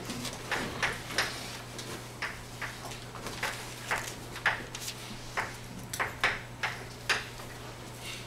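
Chalk tapping and scraping on a blackboard as an equation is written out: a string of short, irregular strokes, a few each second.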